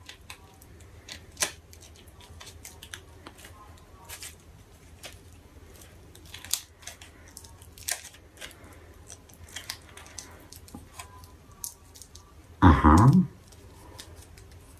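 Irregular small clicks and crackles of a plastic-sealed SD memory card package being handled and worked at to open it. A man's brief voiced sound is the loudest event, about thirteen seconds in.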